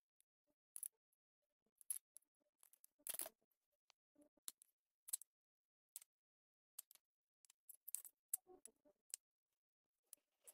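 Metal palette knife clicking and scraping against the palette as it mixes and spreads oil paint: scattered short, sharp clicks at an irregular pace, with a longer scrape about three seconds in.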